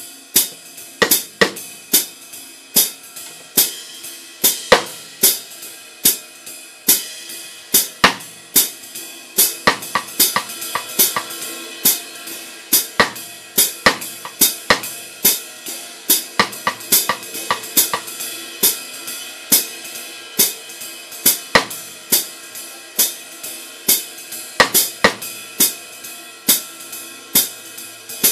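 Sabian HHX Legacy 22-inch ride cymbal played in a steady jazz pattern, with 13¼-inch Zildjian K Custom Hybrid hi-hats chicked shut by the foot pedal. The ride rings between strokes, which come a few times a second.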